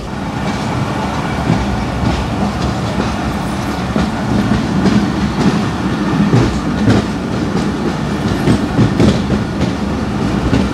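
Passenger train coach rolling along the track, its wheels clacking over rail joints at uneven intervals over a steady rumble with a low hum.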